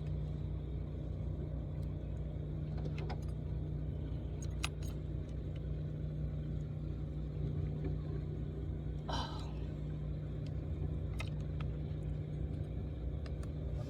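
Steady low motor hum and rumble, with a few light clicks and a short rattle about nine seconds in.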